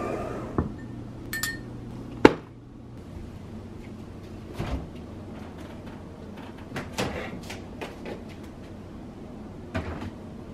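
Scattered knocks and clinks of things being handled in a kitchen, around a bowl on the counter and at an open refrigerator. The loudest is a sharp knock a little over two seconds in.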